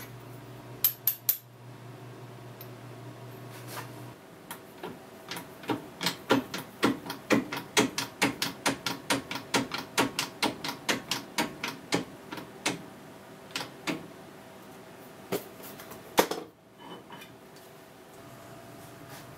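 A drill-press motor hums and stops about four seconds in. Then a shop press is worked to press a brass bushing into an Atlas lathe apron: a quick, even run of sharp clicks, about three a second for some eight seconds, then scattered clicks and one louder knock near the end.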